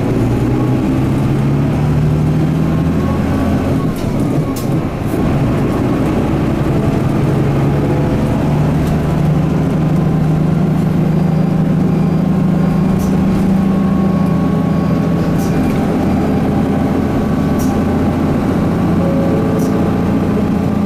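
Inside the cabin of a Mitsubishi Fuso Aero Midi MK bus, its 6M61 six-cylinder diesel engine running under way; the engine note dips about four to five seconds in, then climbs and holds steady as the bus cruises, with a few light rattles.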